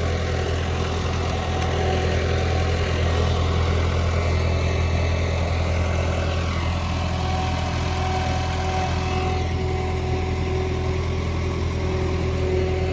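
Skid steer engine running steadily at a constant speed, a low even hum with a steady higher drone over it.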